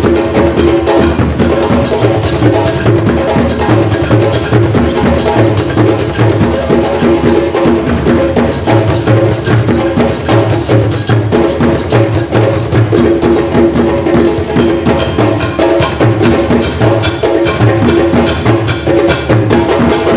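African drum ensemble playing a fast, steady rhythm: djembes struck by hand together with a tall standing drum played with sticks, with dense sharp strokes throughout.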